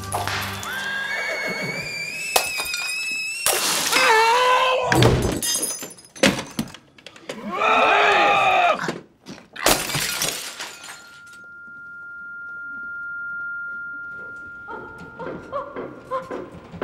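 A slapstick scuffle: a run of loud thuds, crashes and breaking sounds, with a drawn-out cry in the middle. A single steady high tone then swells and fades, followed by small scattered knocks and clicks.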